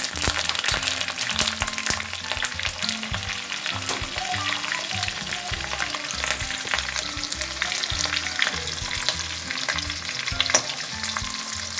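Curry leaves, green chillies, cumin and mustard seeds sizzling and crackling in hot oil in a kadhai: the tempering for chivda frying. There are many small pops throughout, and one louder pop about ten and a half seconds in.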